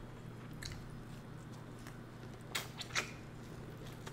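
Close-miked mouth sounds of eating corn on the cob: soft smacks, then two sharper wet clicks about two and a half and three seconds in, as she goes to bite the cob, over a faint steady low hum.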